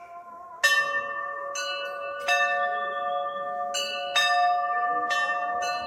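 Temple bells struck again and again, about seven strikes at uneven intervals starting about half a second in. Each strike rings on, and more than one pitch is heard, so the tones overlap into a continuous ringing.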